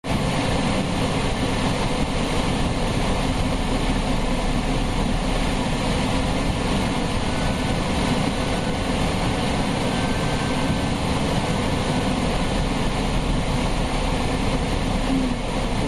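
Steady flight-deck noise inside a Boeing 767 on approach: the rush of air over the cockpit with the engines running underneath.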